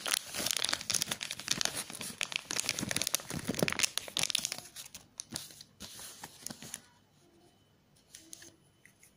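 Crinkling and rustling of a silvery plastic pouch as it is torn open and the alligator clips are shaken out of it, dying away about seven seconds in. A couple of faint clicks of the small plastic-covered clips being touched follow.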